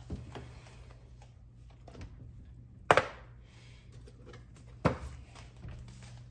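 Kitchen handling noises: three sharp knocks or clanks, the loudest about three seconds in, over a steady low hum.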